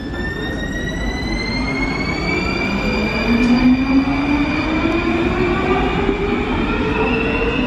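Warsaw Metro train pulling out of the station, its motor whine rising steadily in pitch as it accelerates, over the rumble of wheels on rails.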